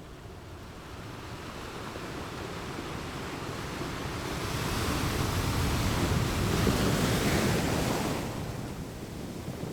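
Sea waves washing in: a rushing hiss that builds over several seconds to a peak a little past halfway, then eases off near the end.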